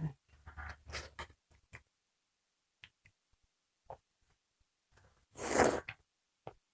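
Mouth noises of people eating: small clicks and smacks in the first couple of seconds, a few faint ticks, then one loud, breathy sucking noise about five and a half seconds in.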